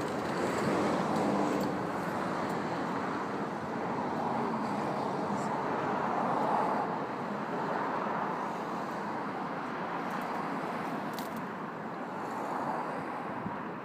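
Steady running noise of a moving vehicle heard from inside it, an even rushing sound with no sharp events.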